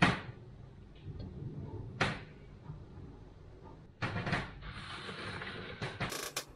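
Kitchenware knocking on a benchtop: a sharp knock at the start, another about two seconds in and a cluster of knocks about four seconds in, then a soft scraping rustle and a few light clicks near the end. The sounds come from a stainless saucepan and a clear plastic chocolate mould being set down, handled and slid along the bench.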